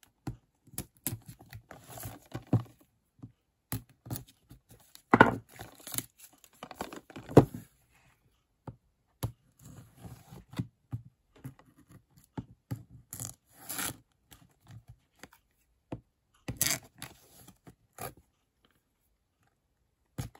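Shrink-wrap plastic being torn and peeled off a Blu-ray case: irregular crinkling, scratching and tearing of the thin film, with the loudest tears about five and seven seconds in and again near seventeen seconds.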